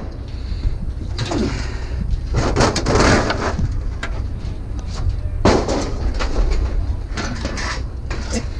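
Several knocks and bangs over a steady low rumble.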